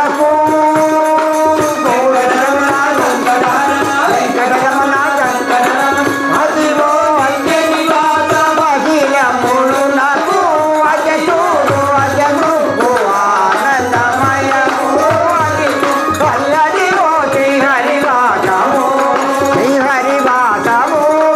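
Men singing a Telugu devotional bhajan into microphones, with hand percussion keeping a steady beat.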